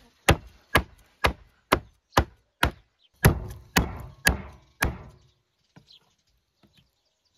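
Steel cleaver chopping boiled chicken on a wooden cutting board: about ten sharp, even strokes, roughly two a second, stopping about five seconds in.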